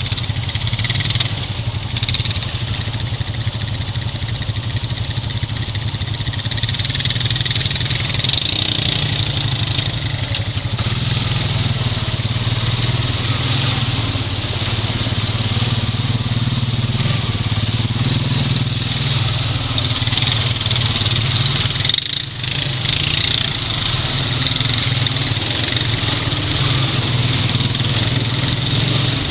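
Honda Rancher 420 ATV's single-cylinder four-stroke engine running steadily at low speed while riding through shallow floodwater, with a brief drop in the sound about three-quarters of the way through.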